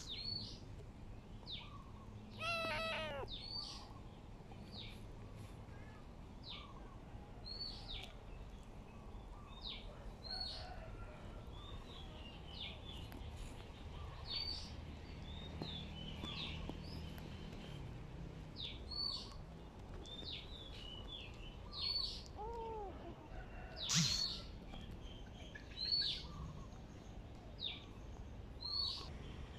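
Small birds chirping on and off, with a kitten meowing once about two to three seconds in.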